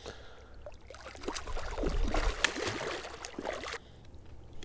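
Water splashing and dripping as a hooked catfish is brought up out of the river and landed, in an irregular run of splashes over about three seconds, with one sharp knock near the middle.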